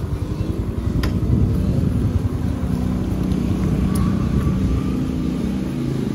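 Motorcycle engine running steadily at low speed, with wind buffeting the microphone; a couple of brief clicks about one and four seconds in.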